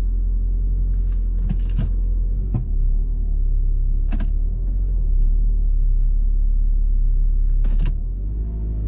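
2004 Saab 9-5 Aero's turbocharged 2.3-litre four-cylinder engine at cold idle, heard from inside the cabin as a steady low hum, easing slightly about eight seconds in. A few light clicks and knocks sound over it.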